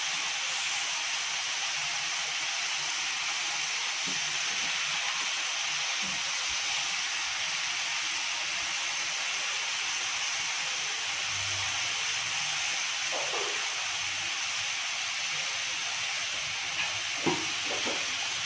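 Chicken mince with onions and tomatoes sizzling steadily in hot oil in a frying pan. There are a few faint knocks near the end.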